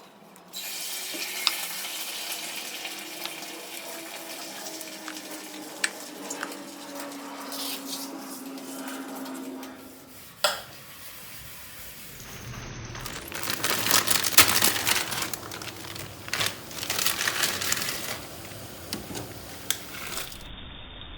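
Kitchen cooking sounds from a few edited clips. For the first ten seconds or so there is a steady hiss like running water. From about twelve seconds in, louder, uneven sizzling and clatter follow, as of food frying in a pan.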